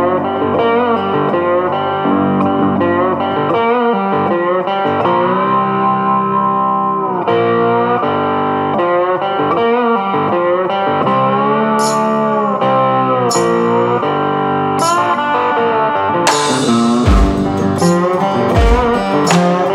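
Background music led by guitar, with long notes that bend in pitch. Sharp strikes come in from about two-thirds of the way through, and low beats join near the end.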